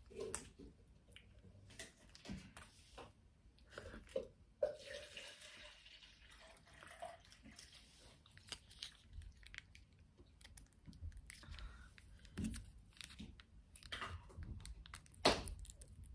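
Close-up eating sounds: chewing and crunching on fried takeout food such as General Tso's chicken and spring roll, with wet mouth sounds and scattered small clicks. A sharper crackle comes near the end.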